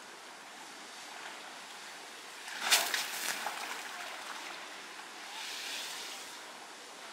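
An Asian elephant working wet mud with its trunk and foot: one loud wet splat a little under three seconds in, a few smaller splashes after it, and a softer hiss of mud a few seconds later, over a steady outdoor hiss.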